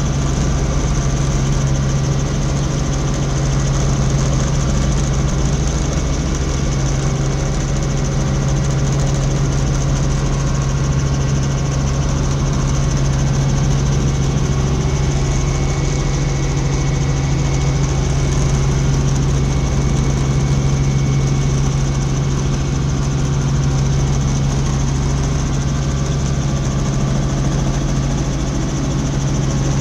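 Helicopter in flight heard from inside the cabin: the engine and rotors make a loud, steady, unchanging drone with a strong low hum.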